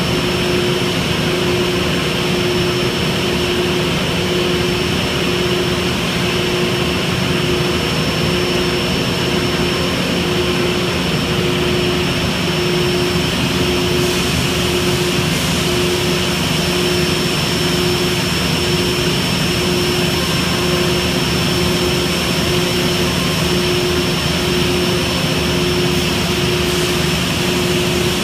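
Steady drone of running panel-saw shop machinery and dust extraction, with a hum that pulses at an even rate and a faint high whine.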